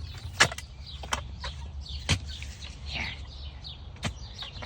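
Backyard chickens clucking and chirping in short, quick calls, mixed with a few sharp clicks or knocks about half a second, one second, two seconds and four seconds in.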